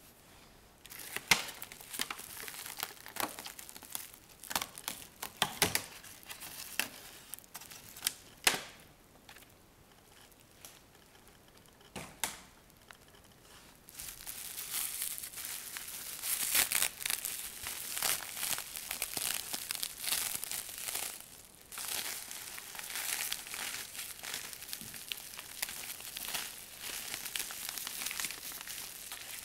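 Plastic packaging being handled and unwrapped: scattered sharp plastic crackles in the first half, then from about halfway in, continuous crinkling and rustling of bubble wrap as it is pulled off the wrapped plant.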